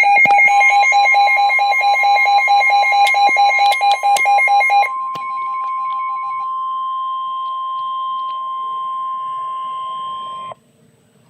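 Weather alert radio sounding a NOAA Weather Radio alert for a tornado warning. A rapid pulsing beeper alarm plays over the steady 1050 Hz warning tone. The beeping stops about five seconds in, and the steady tone holds until it cuts off sharply about ten and a half seconds in.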